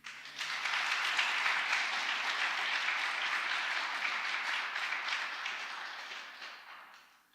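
Audience applauding at the end of an orchestral piece; the clapping starts abruptly, holds steady, and fades away near the end.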